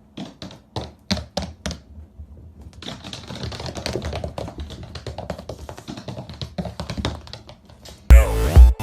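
A few sharp, separate taps in the first two seconds, then a denser run of small irregular taps and clicks, with music with a heavy beat coming in near the end.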